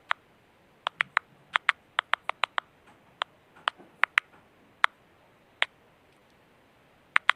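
Popping clicks emitted by a dehydrated tomato plant, recorded in ultrasound and edited so they can be heard: a string of sharp, irregular pops over a faint hiss, with a pause shortly before the end. The plant pops more when it is short of water, a sign of drought stress.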